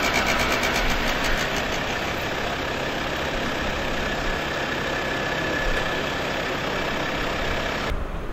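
Small moped engine running steadily with a thin high whine. The sound changes abruptly to a duller background near the end.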